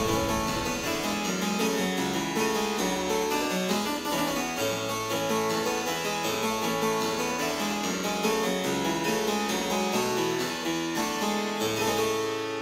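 Harpsichord being played with both hands: a steady run of plucked notes in several voices over a moving bass line.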